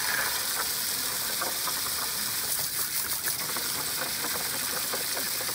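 A jet of water spraying steadily, splashing against a dog's face and into a plastic water table as the dog snaps at the stream.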